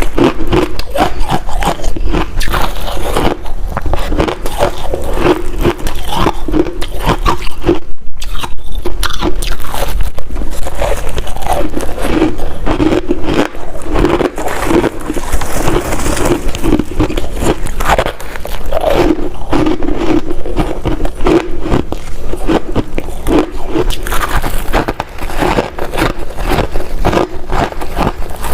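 Ice being bitten and chewed close to the microphone: a dense, unbroken run of sharp cracks and crunches.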